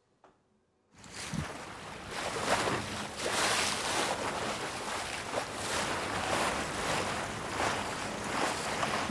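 Near silence for about a second, then water washing along a boat's hull with wind on the microphone, a steady rushing that swells and eases.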